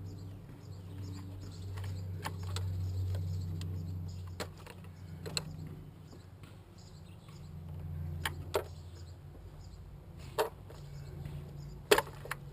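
Scattered clicks and knocks of hand tools and engine parts being handled and unfastened during engine disassembly, the sharpest near the end, over a steady low hum.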